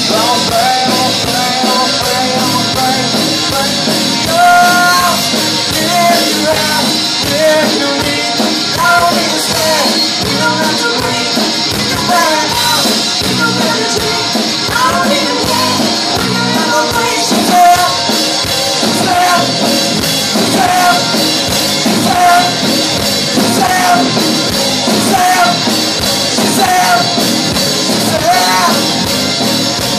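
Live rock band playing: electric guitars and a drum kit with a sung lead vocal over them, loud and steady.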